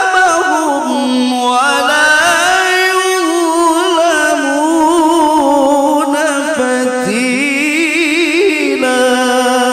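A male qori reciting the Quran in a melodious, drawn-out style into a microphone, amplified through a sound system. He holds one long, unbroken phrase, its pitch wavering in rapid ornaments and stepping up and down.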